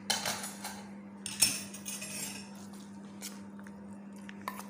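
Metal spoon clinking and scraping against a steel bowl and tray as ginger-garlic paste is added to the beef, a handful of sharp clinks with the loudest about a second and a half in.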